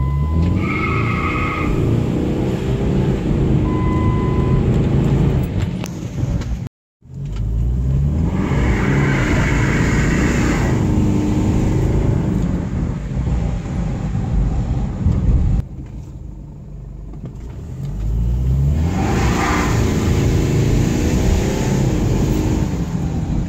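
Jeep Liberty 2.8 CRD's four-cylinder turbodiesel engine pulling hard under full acceleration, heard from inside the cab. Its pitch climbs in repeated pulls through the gears, with a quieter lull about two-thirds of the way through.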